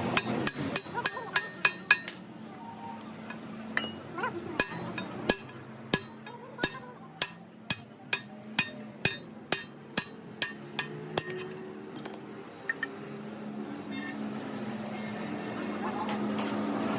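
Hammer striking metal: a fast run of about a dozen ringing blows in the first two seconds, then after a short pause a steady series of blows about every two-thirds of a second, stopping about eleven seconds in.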